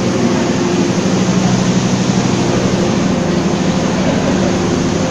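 Diesel train engine running: a loud, steady hum that holds at one pitch.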